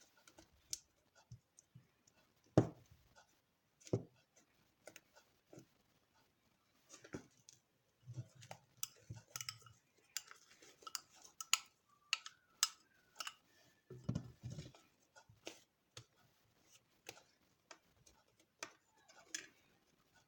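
Hands kneading and stretching a sticky, freshly mixed fluffy slime, giving faint, irregular clicks and small sticky smacks, with one louder knock about two and a half seconds in.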